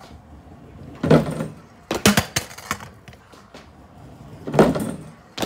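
Stunt scooter hitting a wooden kicker ramp and clattering on concrete. There is a heavy thud about a second in, a quick run of sharp metal knocks around two seconds, and another thud and sharp knock near the end.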